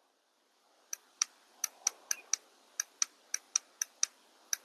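A portable tire compressor's pressure-setting button being pressed repeatedly, about thirteen short clicks at two to four a second, as the target pressure is stepped up to 65 PSI.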